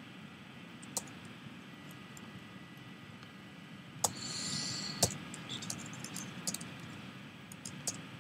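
Computer keyboard typing: a few lone keystrokes, then a quicker run of key clicks in the second half. A brief hiss about four seconds in.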